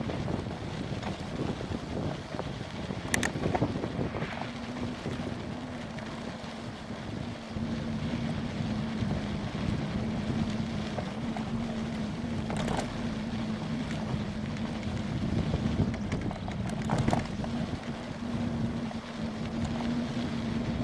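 Wind buffeting the microphone of a camera riding along on a bicycle into a headwind, with a steady low hum underneath and a few sharp clicks.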